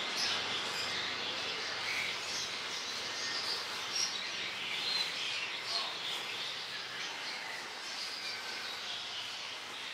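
Steady outdoor street ambience with scattered short, high chirps.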